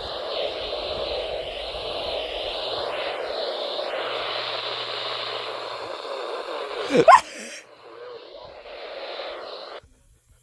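Weather radio receiver hissing with static now that the NOAA Weather Radio transmitter has gone off the air. A brief loud sweeping sound comes about seven seconds in, then a quieter hiss that cuts off abruptly near the end.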